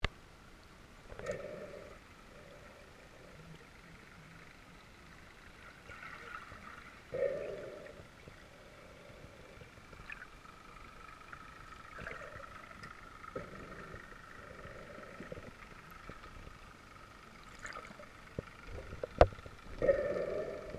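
Underwater sound picked up by a camera: short muffled gurgling bursts every few seconds over a faint steady hum, with a few sharp clicks and one loud knock near the end.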